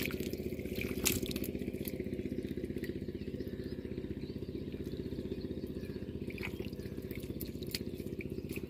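Engine of a water pump draining the pond, running steadily with a fast low throb. A few wet slaps and splashes of a hand groping in the mud stand over it, two sharper ones at the start and about a second in.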